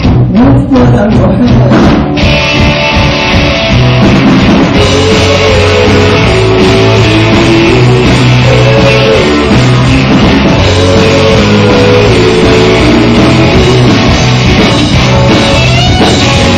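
Loud rock music with a drum kit and guitar. It starts with drum strokes, and the full band fills in about two seconds in.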